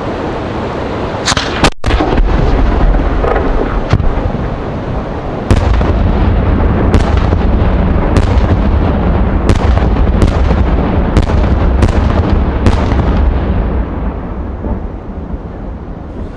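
A 125 mm Italian multi-salute cylinder shell ('scala 8') going off: a bang about a second and a half in, then eight sharp titanium salute reports in a row, roughly one a second, over a heavy low rolling rumble that dies away near the end.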